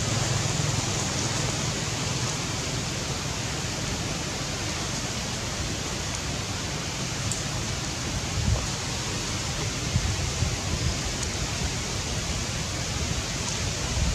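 Steady outdoor hiss with low, uneven wind rumble on the microphone and a few soft bumps.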